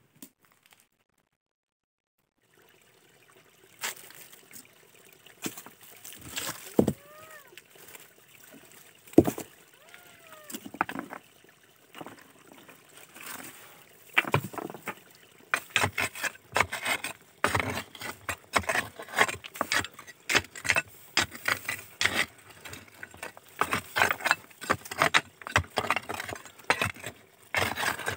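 A wooden-handled hand tool digging into stony soil between rocks: a quick, uneven run of gritty knocks, scrapes and clinking stones through the second half. Before it there are scattered rustles and knocks, with two short pitched calls that rise and fall.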